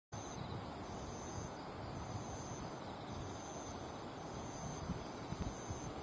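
Insects chirring steadily in a continuous high-pitched drone over an even outdoor hush, with a few low bumps on the microphone near the end.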